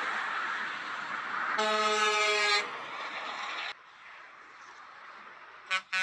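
Truck air horn giving one blast of about a second over steady motorway traffic noise. A short horn toot comes near the end.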